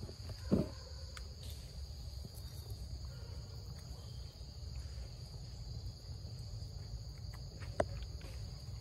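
Steady, high-pitched drone of insects chirring in the forest, with a short low sound about half a second in and a sharp click near the end.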